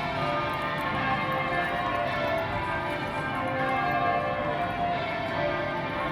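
Church bells pealing: many bells struck one after another, their tones overlapping and ringing on.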